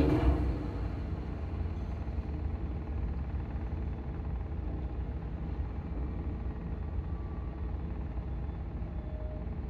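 Steady low engine rumble from cargo-handling machinery at a ferry berth, with a brief bang in the first half second.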